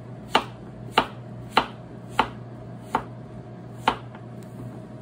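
Chef's knife chopping a zucchini on a plastic cutting board: six sharp knife strikes against the board, about one every 0.6 s, spacing out a little toward the end.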